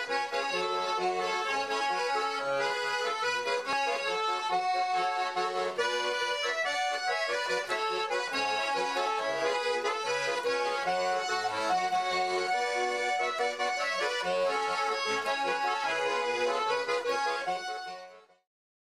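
Instrumental accordion music, a folk-style tune played over a repeating bass line, which cuts off near the end.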